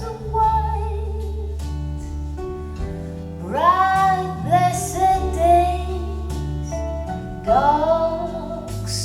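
A folk song: a woman singing long held phrases, starting about three and a half seconds in and again near the end, over plucked-string accompaniment and deep held bass notes.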